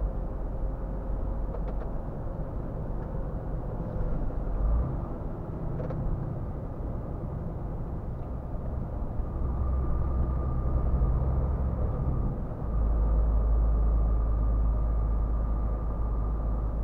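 Scania R450 truck's six-cylinder diesel engine and road noise heard from inside the cab while driving. About three-quarters of the way through, the engine's low rumble becomes noticeably louder and deeper, as under more throttle.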